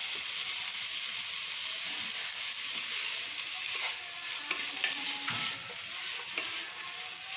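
Sliced onions and green chillies sizzling in hot oil in a pan as they are sautéed soft, with a few scrapes of the spoon against the pan as they are stirred.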